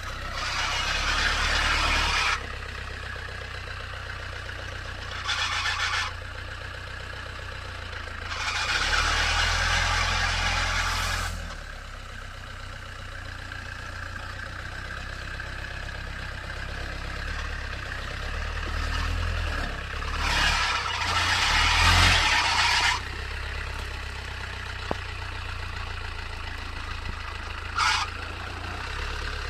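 Land Rover Santana 88 Súper engine running off-road with a steady low hum. Several louder rushing surges break in over it, lasting from under a second to about three seconds; the longest come around nine and twenty-one seconds in.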